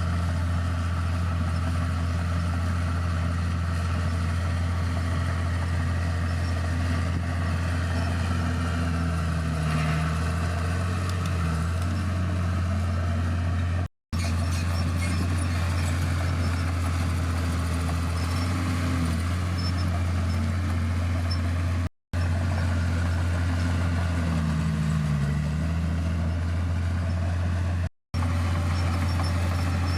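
Heavy earthmoving machine's diesel engine running steadily, its pitch dipping and rising several times as the load and revs change. Three brief dropouts cut the sound.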